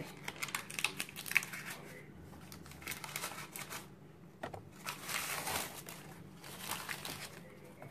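Backing paper of a sticky-back floor tile crinkling and rustling as it is peeled and pulled out from under the tile, in about four short spells.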